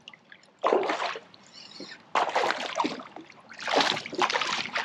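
A hooked fish splashing and thrashing at the water's surface beside a kayak as it is landed, in three short bursts of splashing with quieter gaps between.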